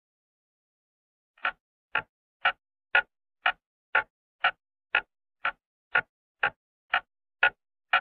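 Ticking sound effect: short, sharp ticks at an even two per second, starting about a second and a half in.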